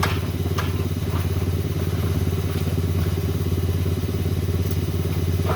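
An engine idling with a steady low rumble, with a few light clicks in the first second or so.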